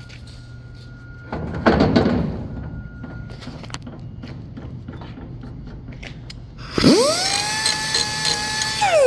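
A handheld power tool's motor spins up to a steady high whine about seven seconds in, runs for about two seconds, then winds down as the trigger is let go. Earlier, about a second and a half in, there is a brief burst of rough noise.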